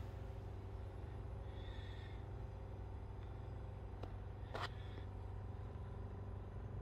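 Steady low hum of background machinery or electrics, with two short clicks about four and a half seconds in.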